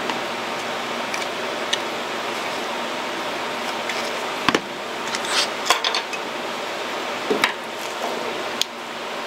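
Scattered clicks and light knocks of a plastic freeskate and a screwdriver being handled and set down on a cutting mat, over a steady hiss.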